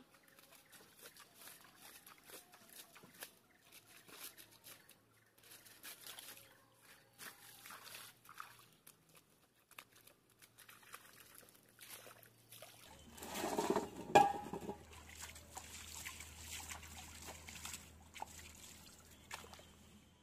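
Bare hands scooping and squelching wet mud and water while digging a hole in a pond's muddy edge: irregular small splashes, slops and trickles, with a louder spell of sloshing about two-thirds of the way through.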